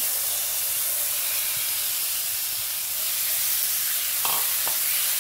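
Marinated chicken tikka pieces frying in hot oil in a nonstick pan, a steady sizzling hiss, while a silicone spatula stirs and spreads them.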